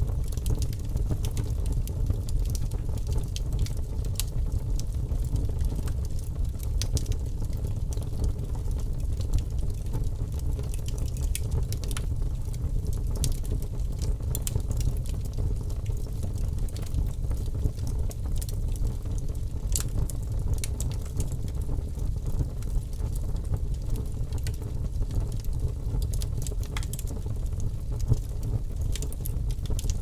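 Log campfire burning: a steady low rumble of flames with frequent sharp crackles and pops scattered throughout.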